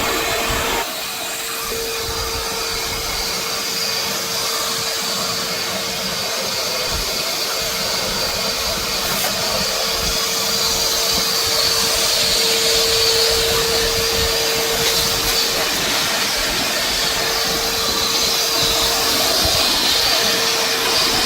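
Shop vac running through a cyclone dust separator, pulling up sawdust: a steady motor whine over a loud rush of air, swelling slightly past the middle.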